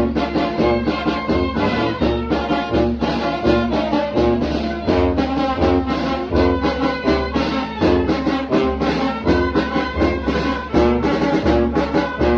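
Brass band (banda) playing: trumpets and trombones carry the melody over a low bass line pulsing on a steady beat, with drums.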